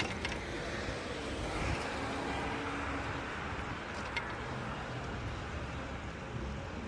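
City street traffic: cars and their engines passing in a steady wash of noise, with a sharp click about four seconds in.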